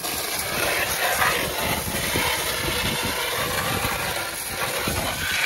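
Homemade electric pressure washer running, its 1 HP motor pump driving a water jet: a steady, dense hiss over a motor hum.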